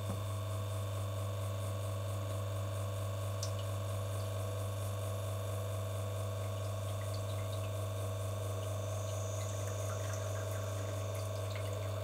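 Lelit Bianca V3 espresso machine's rotary pump running steadily during a shot, a low even hum with water flowing through the group head.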